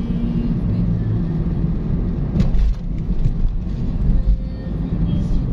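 Steady engine hum and road rumble heard inside the cabin of a moving car, with a brief knock about two and a half seconds in.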